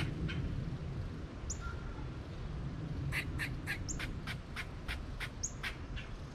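A bird calling outdoors: a fast run of short, sharp chips, about four or five a second, through the second half, with a few high rising squeaks, over a low outdoor rumble.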